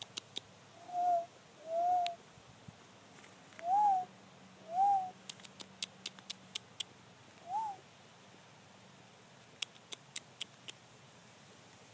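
Five soft hooting calls, spaced out, each rising then falling in pitch. Between them are two runs of quick, faint clicks, about five a second.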